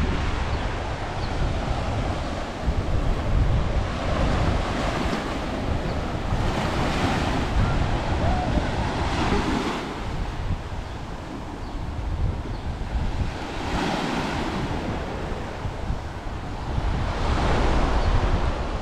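Sea waves washing onto the shore in slow swells every few seconds, with wind rumbling on the microphone.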